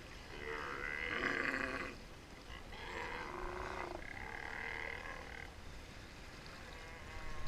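Steller sea lions roaring: deep, drawn-out calls in about three overlapping stretches, each a second or more long, over a low rumble of wind and water.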